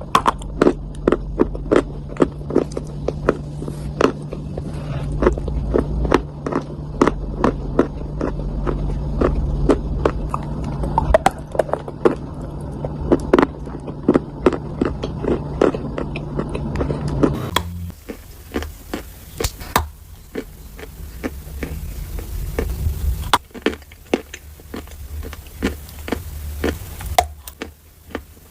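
Dry clay being crushed and crumbled, a dense run of sharp crunches and crackles. A low steady hum sits under the first part, and the sound changes abruptly twice, as at edit cuts between clips.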